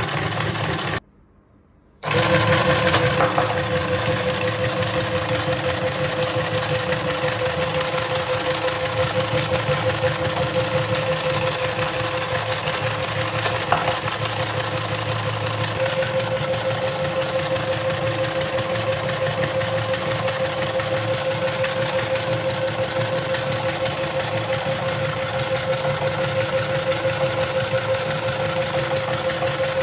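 Small DC motor and plastic gear mechanism of a toy dinosaur track set running overdriven from a bench power supply at 15 then 20 volts: a steady whine over fast mechanical clatter. It cuts out briefly about a second in and resumes.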